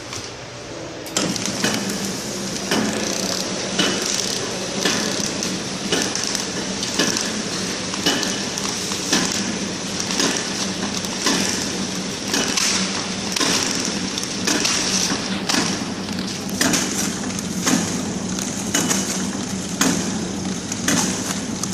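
Horizontal pillow flow packing machine running with a steady hum, and a sharp metallic clack about once a second as each pack is sealed and cut off. The running sound steps up sharply about a second in.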